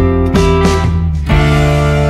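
Instrumental background music with guitar: a few plucked notes struck over held chords.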